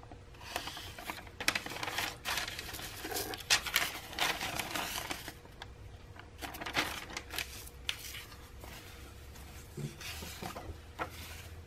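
Sheets of old paper receipts and invoices rustling and crinkling as they are handled, lifted and turned over, in short irregular swishes and crackles.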